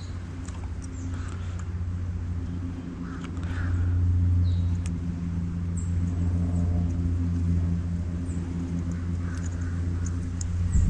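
A steady low motor hum, growing louder for a couple of seconds about four seconds in, with faint short bird chirps and small clicks over it.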